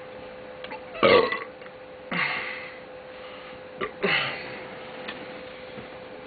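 A man burping three times, about a second, two seconds and four seconds in, the first the loudest, each dropping in pitch. A short click comes just before the last burp, and a faint steady hum runs underneath.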